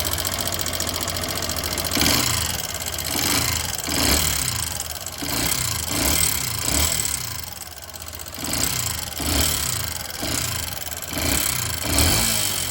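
Yamaha Factor motorcycle's single-cylinder engine running with a mechanical noise, revved up and let fall back about a dozen times, roughly once a second. On teardown the noise is traced to a badly worn piston, with excessive valve-guide clearance as well.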